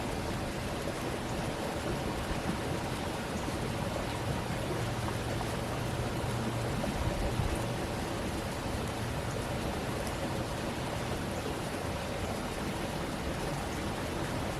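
Stream water running steadily, with a low rumble swelling briefly around the middle.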